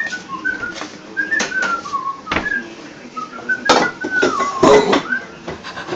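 A person whistling a string of short, sliding high notes to call a puppy, with a few sharp knocks in between.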